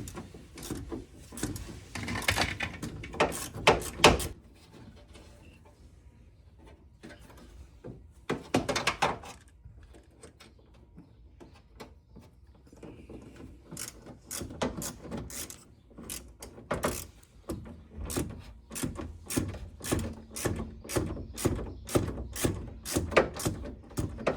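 Hand tools clicking and knocking on metal while a stubborn screw is worked loose. A few louder knocks come early on, then a steady run of clicks, about two a second, in the second half.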